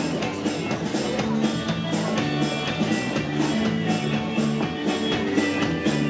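Country band playing an upbeat song with guitar over a steady drum beat.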